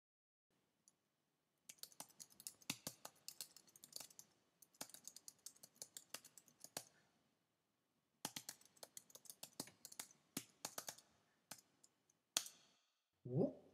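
Computer keyboard typing: two runs of rapid keystrokes with a short pause about halfway. Near the end comes one louder, sharper click, followed by a short rising tone.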